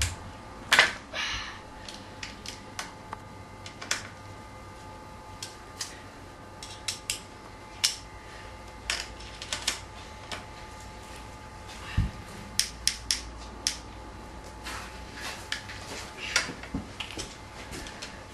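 Irregular small metallic clicks and taps from hand tools working on a dirt bike's front wheel hub and brake disc, with one dull knock about twelve seconds in.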